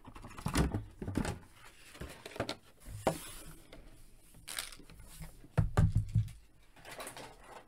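Clear plastic blister tray being handled, crinkling and clicking in irregular bursts, with a louder cluster of rustles and knocks about three-quarters of the way through.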